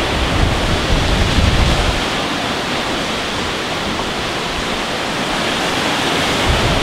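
Sea surf breaking on the rocks below a cliff, heard as a steady loud rush. For the first two seconds wind also buffets the microphone.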